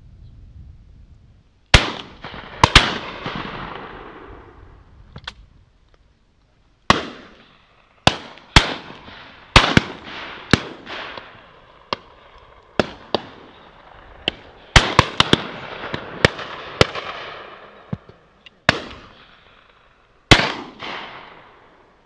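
12-gauge shotguns firing at driven birds: about twenty shots, some loud and near, others fainter and distant, several in quick pairs about half a second apart, each trailing off in a long echo.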